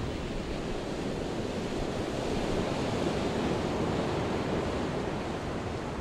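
Ocean surf: a steady rushing wash of waves that swells a little midway.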